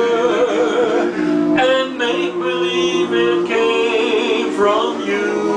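Barbershop quartet of four men singing a cappella in close harmony, holding chords that shift every second or two.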